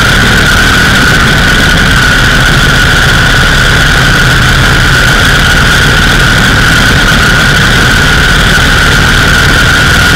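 Indian 101 Scout's V-twin side-valve engine running at a steady road speed, loud and unbroken. It is heard close up under heavy wind noise, with a steady high whine over the low rumble.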